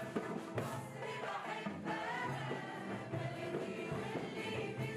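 A choir of women singing a song, backed by a small band with keyboard and drums.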